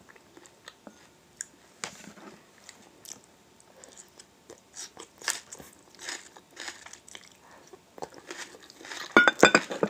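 Close-up biting and chewing of a grilled wild onion leek, with soft crunching and scattered small clicks, then a quick run of louder clicks about nine seconds in.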